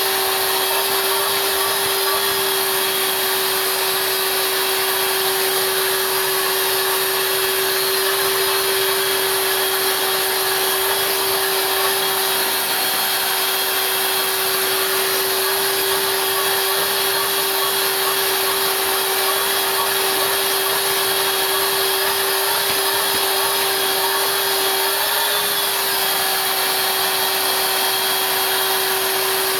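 Vacuum cleaner running steadily: a constant motor whine over a rushing hiss of air, with a brief wobble in pitch near the end.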